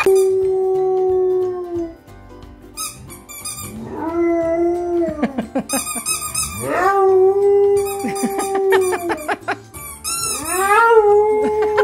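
Pit bull-type dog howling: four long howls, each rising at the start and then held on one steady pitch, with short breaks between them.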